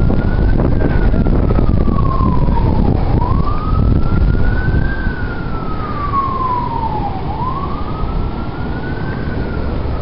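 A siren wailing, its pitch rising and falling slowly about once every four seconds, over a steady low rumble of wind on the microphone.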